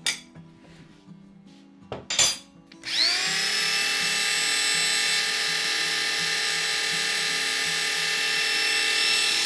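Corded electric drill spinning the oil pump of a Chrysler 440 big-block V8 through the distributor hole to prime its oiling system, pushing oil up to the lifters and rockers. It spins up about three seconds in and then runs steadily under load, after a couple of short knocks.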